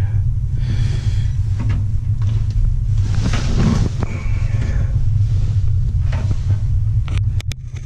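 A steady low hum, with rustling and knocking of handling over it and a few sharp clicks near the end.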